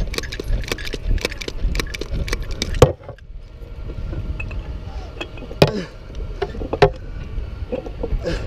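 Rapid metal clicking and chain rattle from a lever chain hoist being worked, ending in a loud clack about three seconds in. Then a few separate metal clanks as the porcelain insulator string and its hardware are handled.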